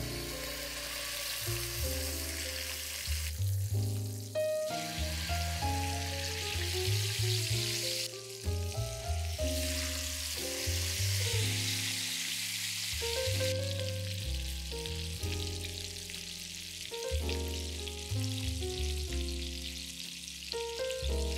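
Chicken legs sizzling in hot oil in a frying pan, searing skin-side down; the sizzle starts as the chicken goes into the pan and grows louder about eight seconds in. Background music plays under it.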